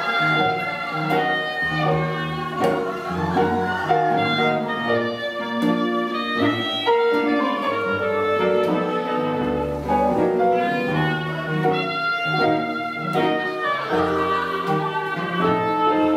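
Live swing-blues band playing dance music: a bass line under a lead melody line, at a steady dance level.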